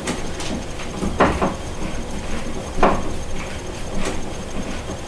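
A few separate knocks and clunks of hard objects being handled and set down.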